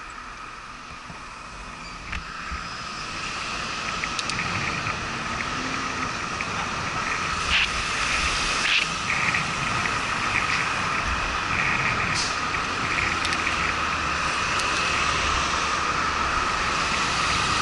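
Wind and road noise picked up by a camera riding on a bicycle in city traffic, growing louder as the bike gathers speed, with cars going by and a few sharp clicks and rattles.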